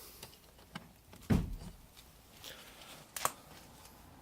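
A dull knock about a second in and a sharp click near the end of the third second, from parts being handled in a car's engine bay.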